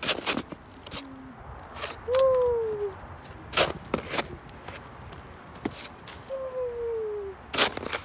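Snow crunching in sharp, separate crunches, several times, the loudest near the start and near the end. Two drawn-out calls falling in pitch are heard between them.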